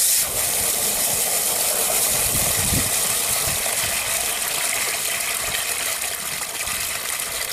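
Water gushing and splashing out of the bottom of a trough float valve as its cap is unscrewed by hand under full flow. The water makes a steady rush, with a few low bumps of handling about two to three seconds in.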